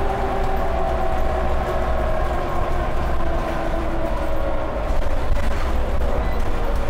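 Scania OmniCity single-deck bus under way, heard inside the saloon: the diesel engine works hard with a steady deep drone, and a whining tone drifts slowly lower. A few faint knocks and rattles come from the body.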